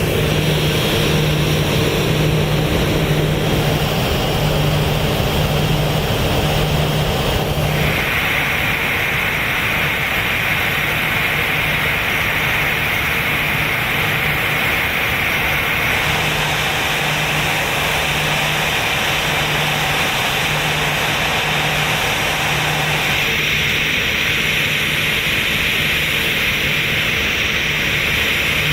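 Steady engine and machinery noise of an aircraft de-icing operation on an Airbus A320. A strong hiss, fitting de-icing fluid being sprayed, starts sharply about eight seconds in and changes in strength around sixteen and twenty-three seconds.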